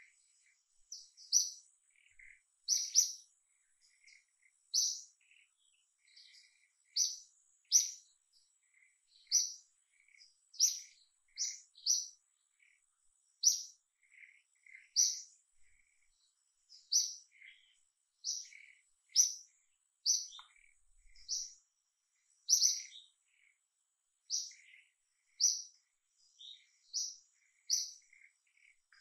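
A bird calling over and over: short, high chirps about every one to two seconds, with fainter lower notes between them.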